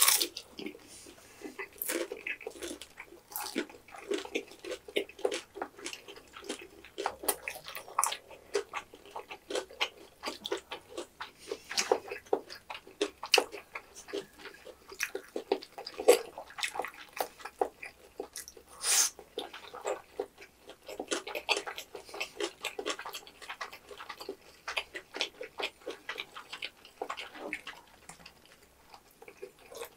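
Two people eating Korean snack food: wet chewing, smacking and biting into sauce-coated tteokbokki rice cakes, fried snacks and kimbap, with many short irregular clicks and smacks.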